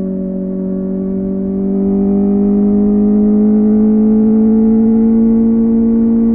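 Kawasaki ZX-4RR's inline-four engine running through a Yoshimura AT2 slip-on exhaust, holding a steady note that climbs slowly in pitch and grows louder about two seconds in.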